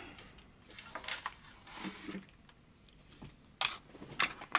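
Scattered small clicks and taps of test probes and fingers handling components on a circuit board during capacitor testing, with a louder pair of clicks near the end.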